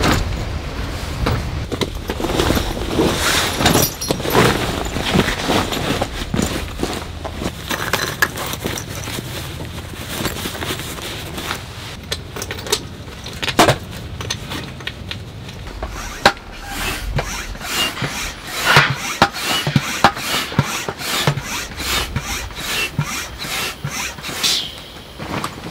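Hands-on tent pitching: tent fabric rubbing and rustling, with scrapes, knocks and clatters of poles and fittings. A run of quick, evenly spaced clicks comes near the end.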